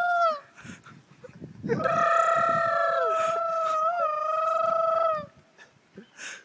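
A man's long, held, wailing animal-cry imitation called through cupped hands. A first call ends about half a second in. A longer one follows from just under two seconds in, about three and a half seconds long, dipping briefly in pitch partway through.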